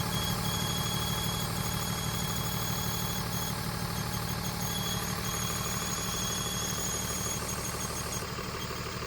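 Car engine idling with a thin, high-pitched squeal over it, steady at first and then breaking up into short chirps in places. The uploader ties the squeal to an exhaust leak at the manifold gasket.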